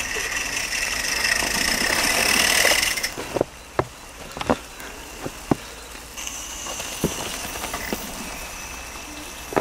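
Mamod Double Fairlie live-steam model locomotive hissing steam, loudly for about three seconds, then broken by several sharp, separate knocks, after which a fainter hiss comes back.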